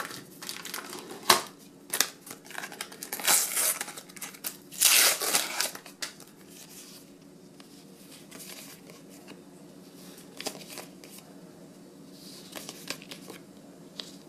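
Paper stickers being handled and leafed through by hand on a table, with paper rustling and crinkling in two louder bursts about three and five seconds in, then quieter shuffles and light taps.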